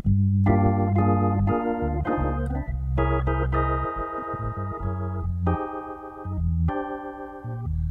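Hammond organ being played: held chords over a moving bass line, changing every half second to a second.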